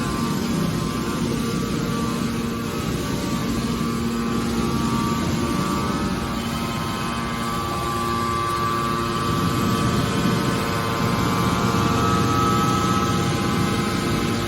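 Scrap-metal baler machinery running steadily: a low hum under a steady high whine, over a mechanical rumble, growing a little louder in the second half.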